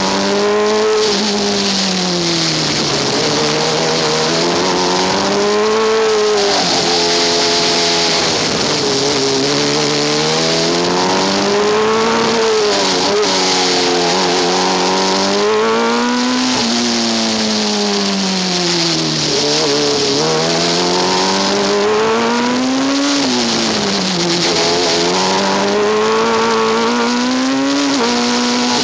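Formula Student race car's engine heard on board, its note rising and falling again and again as the car accelerates and slows. There are a few sudden drops in pitch, and a steady high hiss runs over it.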